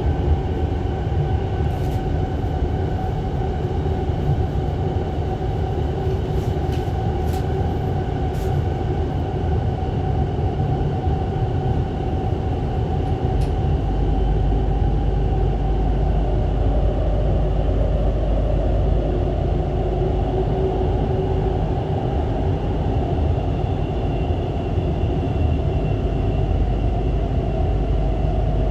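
Steady running noise inside a GTX-A train carriage travelling through a tunnel: a dense rumble of wheels and running gear with a few faint steady tones above it. The low rumble grows a little heavier about halfway through.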